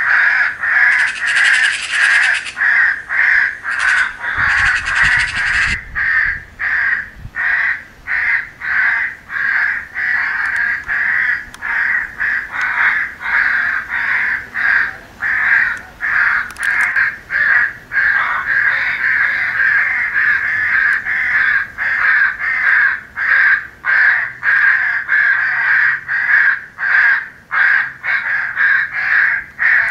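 A flock of crows cawing over and over, about two harsh caws a second, some overlapping, from a recorded crow-calling sound file made for an electronic game caller. The first few seconds carry an extra hissy layer on top of the caws.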